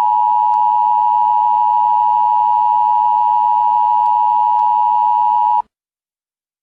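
Emergency Broadcast System attention signal: a loud, steady two-tone alert held unbroken for about five and a half seconds, then cut off suddenly.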